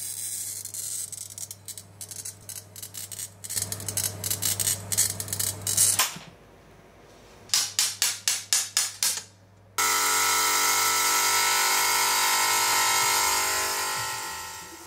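Workshop glass-working sounds: quick scraping and tapping strokes for several seconds, a brief lull, then about eight sharper strokes. From about ten seconds in a benchtop glass grinder's motor and diamond bit run steadily, fading near the end.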